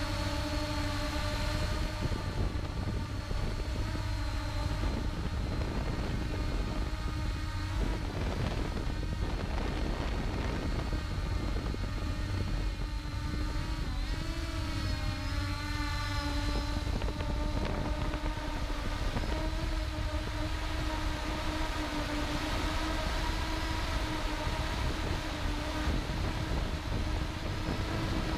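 Ehang Ghost quadcopter's electric motors and propellers whining steadily in flight, their pitch wavering as the motors adjust speed around the middle, with wind rumbling on the onboard microphone.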